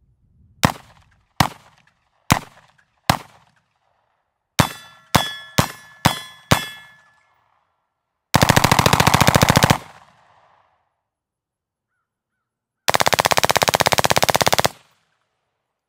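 MK18 carbine with a 10.3-inch barrel firing 5.56 M193 rounds. First come four single shots about a second apart, then a faster string of five. Two full-auto bursts follow: the first, lasting about a second and a half, is unsuppressed, and the second, about two seconds long, is fired through the Energetic Armament Ferox suppressor.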